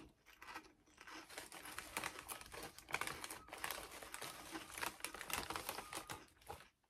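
Lay's Limón potato chip bag crinkling and rustling as it is handled and a hand reaches inside. It is a dense run of crackles that starts about a second in and stops just before the end.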